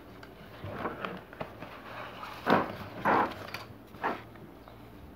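Paper notebook pages and a plastic ruler being handled on a table: a few short rustles and light knocks, the loudest two about two and a half and three seconds in.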